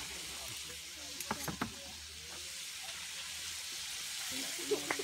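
Steady sizzling hiss from cooking over an open wood fire, with a few sharp clicks about a second and a half in and again near the end.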